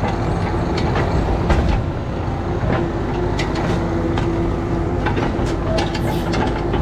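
Compact diesel construction machine running steadily under work, with a steady whine and frequent clanks and rattles.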